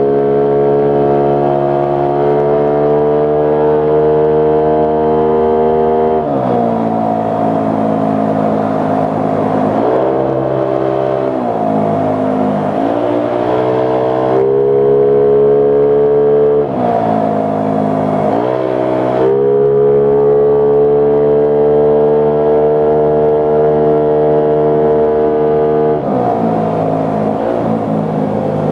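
Motorcycle engine running under way at a steady pitch that dips and climbs back several times as the throttle eases and opens. Wind rushes over the microphone during a few stretches.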